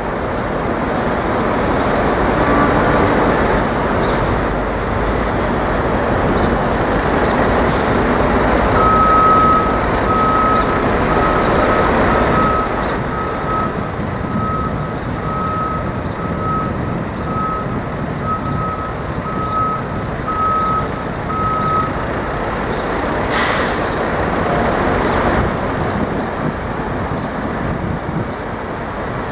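Busy city traffic with a heavy truck running. A vehicle's reversing alarm beeps steadily, a little over once a second, from about a third of the way in until past the middle. A short hiss of air, like an air brake, comes soon after the beeping stops.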